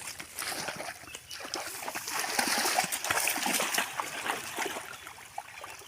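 Water splashing and trickling in irregular bursts, busiest and loudest between about two and four seconds in.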